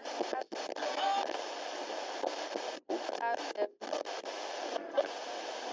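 Radio static from an old radio receiver: a steady hiss that drops out briefly a few times, with short snatches of tone breaking through, like a dial being tuned between stations.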